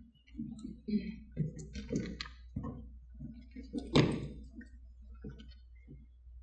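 Footsteps and knocks on a stage and podium, with one loud thump about four seconds in, over a low steady hum.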